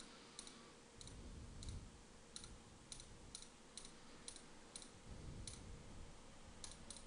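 Faint computer mouse button clicks, about a dozen at uneven intervals, as waypoints are clicked one after another onto a route.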